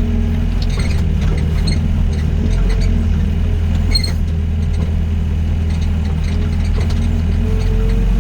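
Doosan DX55 mini excavator's diesel engine running steadily as the machine climbs a dirt pile, with scattered light clanks and rattles from the tracks and a faint wavering whine.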